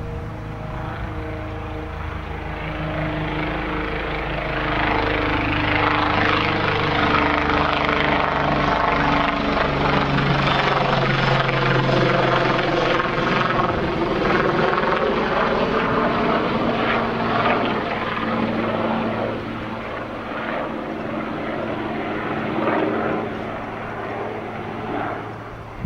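Helicopter flying low overhead: its rotor and engine noise swells over a few seconds, is loudest midway with its pitch dropping as it passes, then slowly fades.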